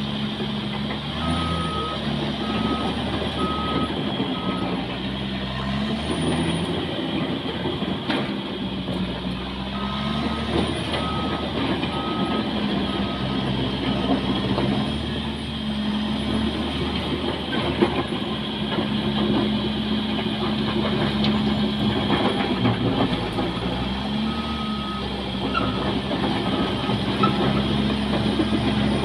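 Caterpillar bulldozer's diesel engine running under load, its pitch rising and falling several times as the throttle changes. A reversing alarm beeps in three spells while the machine backs up.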